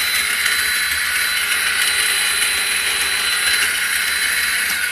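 A 2009 Kawasaki Ninja 250R's electric starter running with a steady whirring hiss while the engine fails to catch and start. The sound fades away just after the starter is released.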